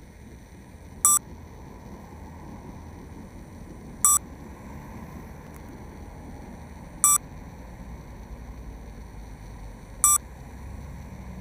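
A short, loud electronic beep repeating evenly about every three seconds, over steady city traffic noise from passing cars.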